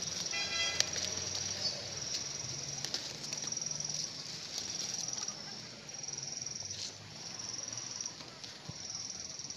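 Insects trilling at a high pitch in repeated pulses of about a second each, with a short pitched call about half a second in. Leaves and vines rustle faintly as they are pulled by hand.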